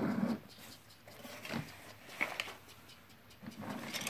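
Plastic toy train of stacking blocks being pushed, its plastic wheels and blocks rattling and scraping in short, irregular bursts, with a brief squeak about two seconds in.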